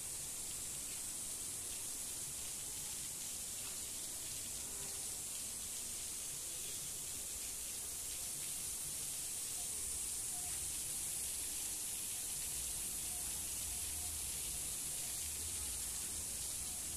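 Steady hiss of water spraying from the sprinkler nozzles of an automatic solar-panel cleaning system onto the panels.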